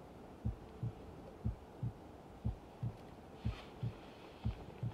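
Slow heartbeat sound effect: a low double thump about once a second, steady and even, over a faint hum.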